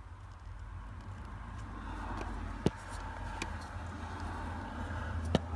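Pocket knife blade working at a plastic zip tie: two sharp clicks a few seconds apart over a steady low hum.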